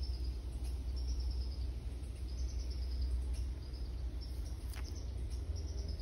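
Eastern chipmunk nibbling and chewing a peanut, faint small clicks over a steady low rumble of background noise, with one sharper click about five seconds in.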